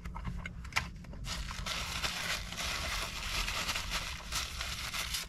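Food packaging crinkling and rustling in someone's hands: a few light clicks at first, then dense crackly crinkling from about a second in that lasts about four seconds.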